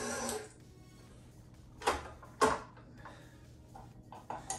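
A stand mixer's motor hum cuts off about half a second in. Then come two sharp clunks about half a second apart and a fainter one near the end, from the mixer and its steel bowl being handled.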